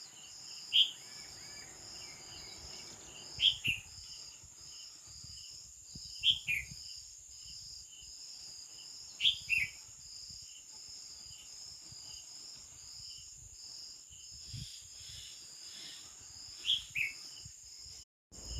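Nightingale giving short, loud falling calls about every three seconds, over crickets chirping steadily in a fast pulsing rhythm. The sound cuts out briefly near the end.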